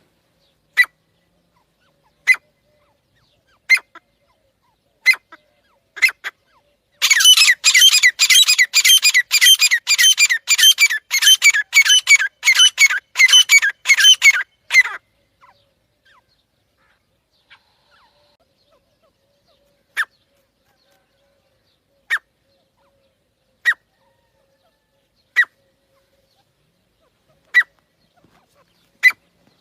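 Teetar (Indian partridge) calling: short sharp single notes about every one and a half seconds, then about seven seconds in a loud, rapid run of harsh calls, several a second, lasting some eight seconds. After a pause the single notes return every two seconds or so.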